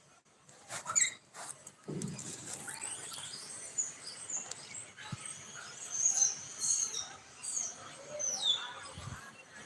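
Repeated short, high-pitched squeaks and chirps from small animals, many sliding down in pitch, with a few sharp clicks about a second in.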